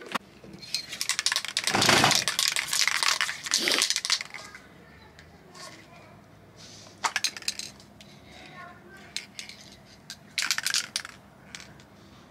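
Aerosol can of black spray paint, rattling and hissing: a long loud stretch of spraying in the first few seconds, then a few shorter bursts, the longest about ten seconds in.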